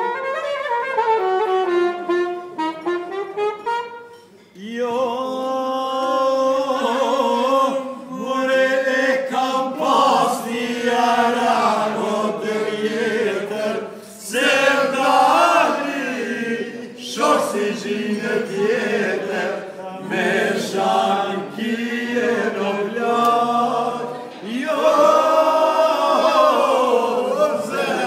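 A saxophone plays a gliding melody; about four seconds in, after a short break, a group of men start singing loudly together.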